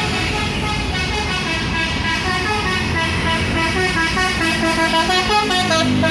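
A bus's 'telolet' musical horn playing a quick tune of short notes that change pitch, growing louder towards the end, over a low engine rumble.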